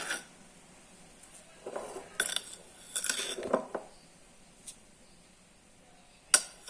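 A metal spoon clinking and scraping against a dish as sugar is spooned into mashed avocado. There are two short bouts of clinks and scrapes about two and three seconds in, and one sharp clink near the end.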